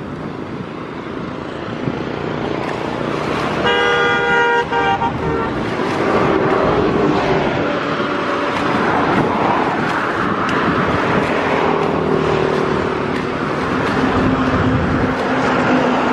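A vehicle horn honks about four seconds in, in a few short broken blasts, over a loud, steady rushing noise. Lower wavering engine-like tones run through the second half.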